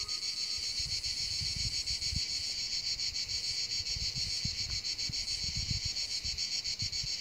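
Cicadas buzzing in chorus, a steady high buzz with a fast pulse, over faint low rumbles of wind on the microphone.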